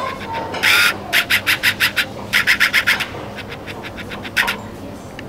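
Quick runs of short rasping, scraping strokes, several a second, in two bursts, then one more stroke later on.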